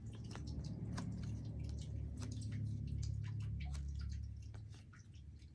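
Scattered light clicks and taps from tarot cards being handled and laid down, over a low rumble that swells and then fades near the end.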